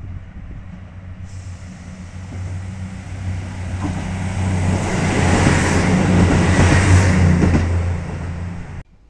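KiHa 75 diesel railcar approaching along the platform: a low, steady diesel engine drone with wheel-on-rail rushing noise growing louder to a peak about two-thirds of the way through. The sound cuts off abruptly near the end.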